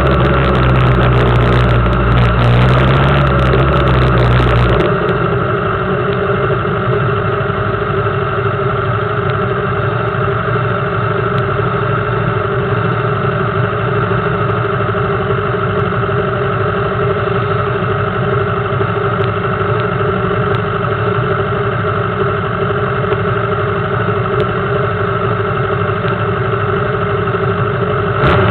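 Suzuki GSX750F motorcycle's inline-four engine running at low speed, then settling to a steady idle about five seconds in.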